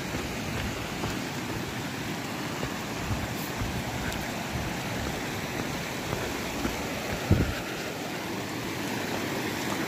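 Shallow mountain stream rushing over loose stones as a steady hiss, with a few low thumps, the strongest about seven seconds in.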